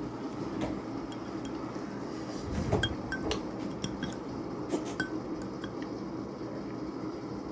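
Eating utensils clinking against a dish: a dull knock about two and a half seconds in, then several light, ringing clinks over the next two seconds.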